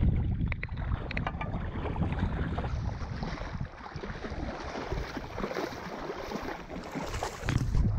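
Legs wading through shallow bay water, a steady sloshing and swishing, with a few knocks in the first second as the camera is handled.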